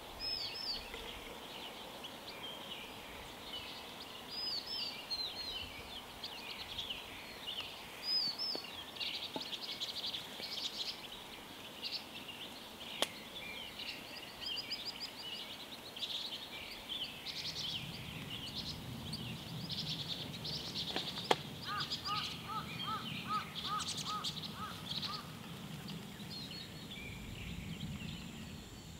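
Wild songbirds chirping and twittering throughout, with a couple of sharp clicks of metal camping gear being handled. A low steady rushing sound comes in past the middle.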